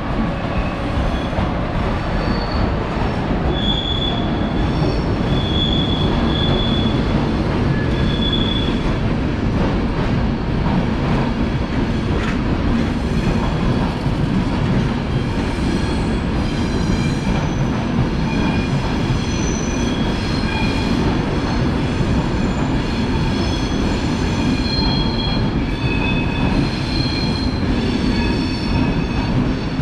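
A train moving through a station, with a steady rumble of wheels on rails and many short, high-pitched squeals from the wheels against the rails, coming more often in the second half.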